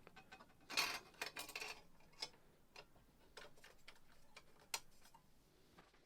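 Faint, scattered clicks and taps of small plastic boombox parts being handled and fitted, with a brief rustling scrape about a second in.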